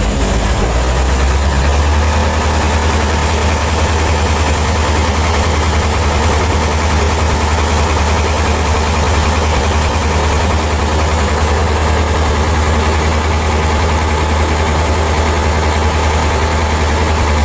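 Heavy engine running steadily at a low idle, a constant deep hum.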